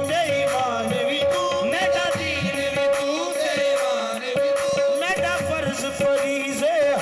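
Live qawwali music: a wavering, ornamented melody over a long held note, with tabla-type hand-drum strokes.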